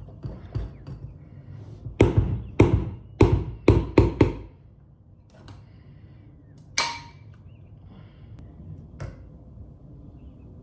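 A run of five loud knocks about half a second apart, then a sharper knock with a short ring a couple of seconds later and a fainter one near the end.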